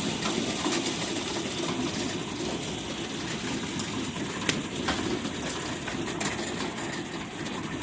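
Hailstones hitting a car, heard from inside the cabin: a steady rush of falling ice with irregular sharp ticks of individual stones striking the roof and windshield.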